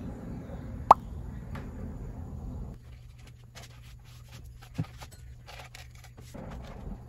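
A single sharp plop about a second in, then a cloth rubbing over a desktop with light handling knocks as a desk lamp is moved, including a dull knock a little past the middle. A steady low hum runs underneath.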